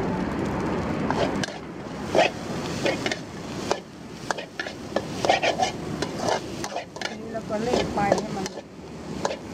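Metal spatula scraping and clinking against a steel wok as fried rice is stir-fried, in quick irregular strokes over a steady sizzle.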